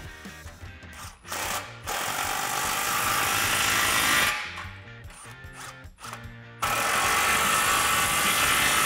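Cordless impact wrench with a 15 mm socket running in two long bursts, each a few seconds, as it tightens the band clamps on a stainless exhaust X-pipe, with a couple of short blips before the first burst.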